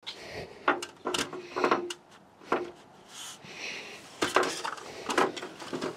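Metal stepladder clanking and knocking as it is handled and climbed: a string of irregular sharp clanks, a few ringing briefly.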